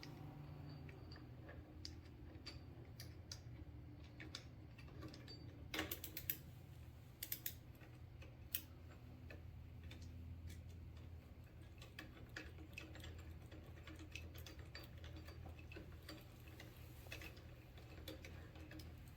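Faint, irregular metal clicks and ticks of a hand tool driving a new T30 Torx screw into the end of a Can-Am Ryker handlebar, with a few louder clicks about a third of the way in, over a low steady hum.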